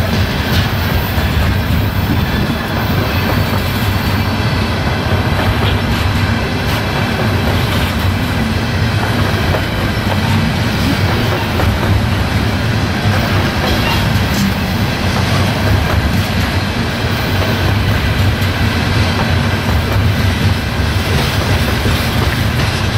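Loaded or empty CSX open-top hopper cars of a freight train rolling steadily past: a continuous low rumble of steel wheels on rail, with occasional clacks at the rail joints.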